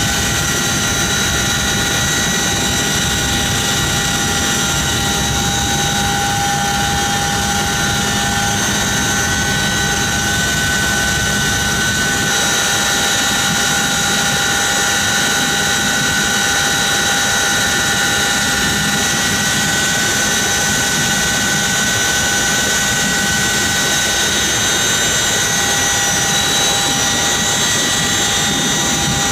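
CH-47 Chinook helicopter's twin turboshaft engines and drive system running steadily on the ground, heard from inside the open-ramp cargo cabin: a loud, unbroken turbine whine with several high steady tones over a low rumble.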